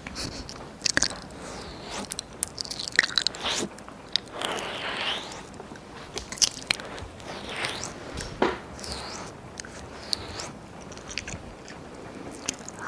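Wet mouth sounds close to the ears of a 3Dio binaural microphone: irregular tongue clicks, lip smacks and licks, with a few longer slurping licks.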